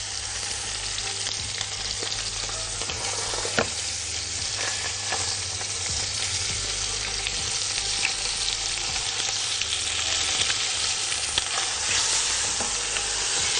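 Whole chicken sizzling steadily as it browns in butter and oil in a tall metal pot, with a sharp knock of the tongs against the pot about three and a half seconds in and a few lighter clicks as it is shifted.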